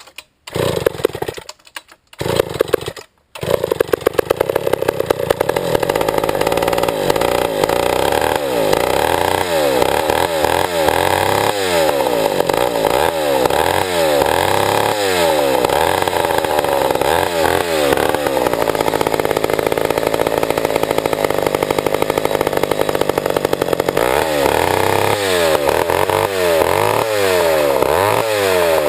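Old Pioneer two-stroke chainsaw firing in a couple of brief bursts, then catching about three seconds in and running. Its engine is revved up and down again and again.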